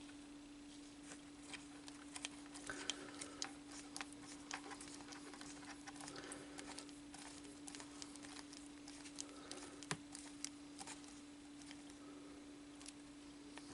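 Small screws being driven by hand into plastic model-kit parts: scattered faint clicks and light scrapes of the screwdriver and parts, over a steady low hum.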